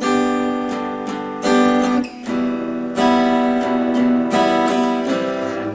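Acoustic guitar strummed in a rhythm pattern: a series of full chords, each stroke ringing on, with the chord changing twice along the way.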